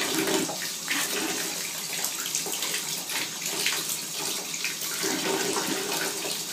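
Tap water running steadily into a small plastic baby bath, splashing as a baby's hand plays in the falling stream.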